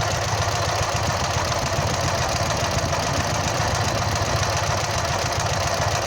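A Ural's engine idling steadily, with an even low pulsing and no revving.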